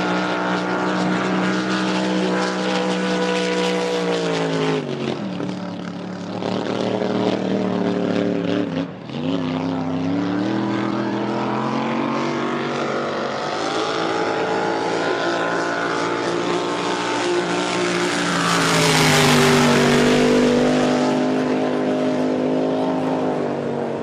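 Racing powerboat engine running hard at high speed, its pitch dipping twice in the first ten seconds. About nineteen seconds in it grows loudest with a rushing sound as the boat flies past, and its pitch drops as it goes away.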